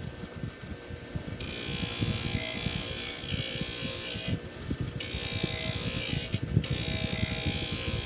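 Delta 6-inch bench grinder running with a Scotch-Brite wheel as a cast hand wheel is pressed against it for polishing. An abrasive hiss comes in about a second and a half in and breaks off briefly twice as the piece is lifted and repositioned, over the steady hum of the grinder's motor.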